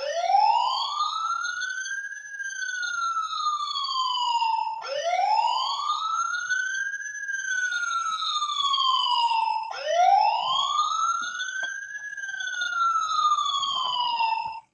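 Electronic toy fire truck siren wailing in three identical cycles, each rising quickly and then falling slowly, about five seconds apiece. It starts and cuts off abruptly.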